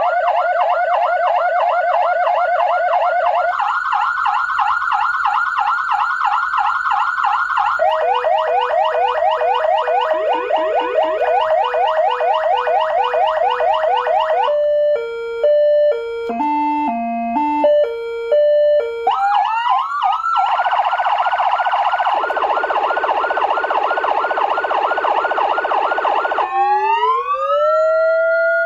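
AS940 400-watt electronic siren sounding through its loudspeaker and cycling through its tones: fast repeating warbles and yelps, a stepped pattern of short tones of different pitches about halfway through, and a slow rising wail near the end.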